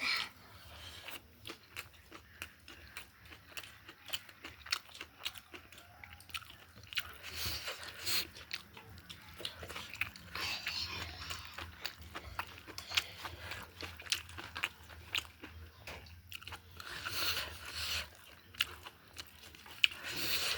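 Person eating chicken close to the microphone: biting and chewing, with crunches and many short sharp mouth clicks.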